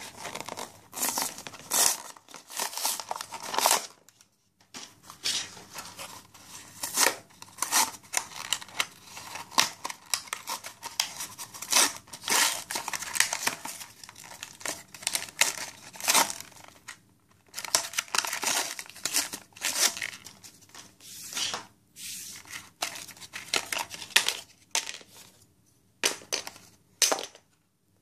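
Cardboard-and-plastic toy packaging being torn open and crinkled by hand, in irregular bursts of ripping and rustling with a few short pauses.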